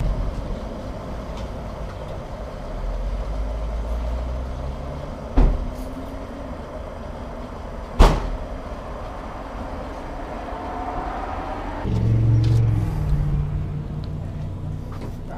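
Motor vehicle engines and traffic running steadily, with two sharp knocks about five and eight seconds in. A louder, low engine rumble starts suddenly about twelve seconds in.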